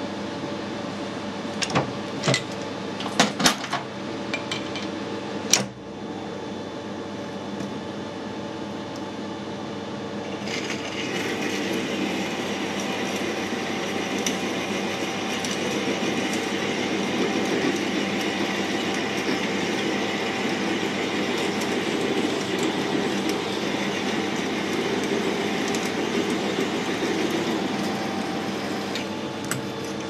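Metal lathe running steadily, with several sharp metal clinks in the first few seconds. From about ten seconds in, a twist drill fed from the tailstock cuts into the spinning workpiece and adds a steady, higher cutting noise over the hum of the lathe, which stops shortly before the end.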